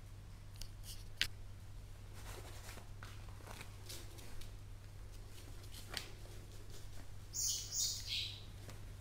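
Border Terrier puppy moving about and chewing a slipper on a tiled floor: faint, scattered clicks and taps. Near the end come three short, high-pitched squeaks in quick succession.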